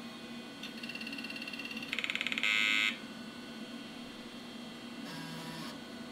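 A 386 PC booting: a steady fan hum, a rapid ticking from about a second in, then a short loud beep from the PC speaker, and near the end a brief buzz as the floppy drive seeks.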